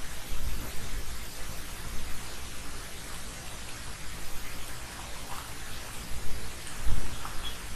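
Steady hiss of background noise, even and rain-like, with a few low thumps, the loudest about seven seconds in.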